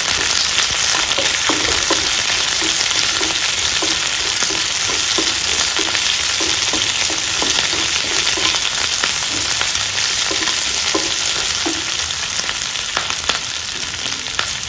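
Chopped onion, capsicum and green chillies sizzling loudly in hot oil in a non-stick wok. They are stirred with a wooden spatula, giving short repeated scrapes against the pan about two or three times a second, which stop near the end while the sizzle goes on.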